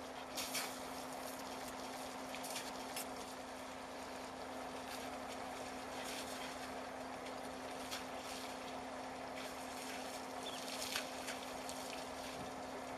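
African elephants splashing and sloshing water as they bathe: scattered short splashes over a steady low hum and outdoor background.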